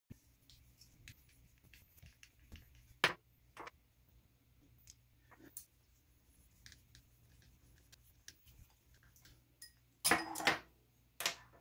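Light clicks and taps of plastic RC suspension links, screws and a hex key being handled on a workbench, with a sharper tick about three seconds in and a louder clatter of parts being set down near the end.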